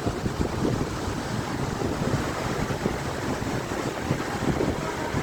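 A steady rush of water pouring from a dam's spillway, with wind gusting on the microphone.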